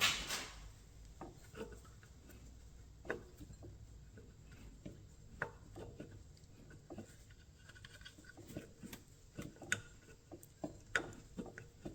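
Scattered light clicks, taps and rubbing as a mounting bolt is twisted and worked out of the power steering pump bracket, with a louder knock right at the start and the taps coming more often near the end.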